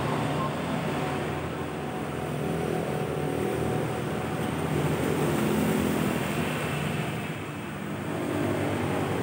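An engine running steadily, its pitch drifting a little.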